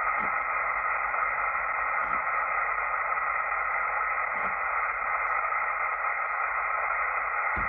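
Steady static hiss from a Kenwood TS-440S HF transceiver in upper-sideband mode as its tuning knob sweeps down the 15-metre band. No signals come through: the band is dead, blacked out by a geomagnetic storm.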